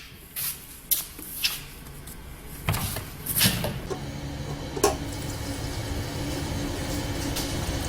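Handling knocks and clicks at the fuel filler of a Sendai SD3500E generator, then a steady faint pour of gasoline into its tank from about five seconds in.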